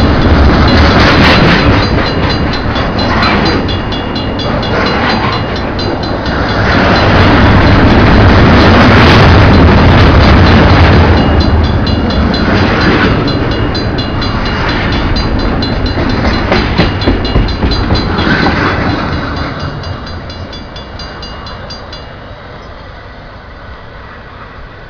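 CN train cars rolling past at a level crossing, rumbling and clacking over the rails, with a steady high ringing over it. The train noise fades away over the last few seconds as the end of the train passes, and the ringing stops about 22 seconds in.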